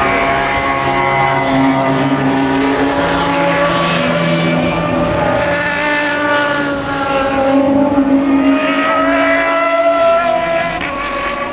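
Endurance race cars at Le Mans going by at speed, several engine notes overlapping, their pitch rising and falling as the cars pass.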